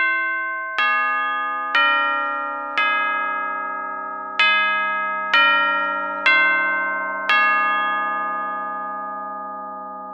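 A short melody of eight struck, bell-like chime notes at an uneven pace. Each note rings on and overlaps the next, and the last one fades out slowly.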